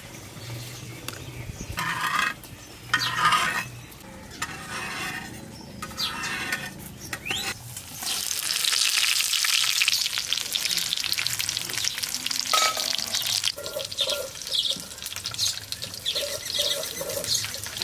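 Pumpkin-leaf parcels of fish frying in hot oil in an earthen clay pan over a wood fire, a dense crackling sizzle that starts about eight seconds in as the parcels go into the oil. Before that, several short separate bursts of hiss.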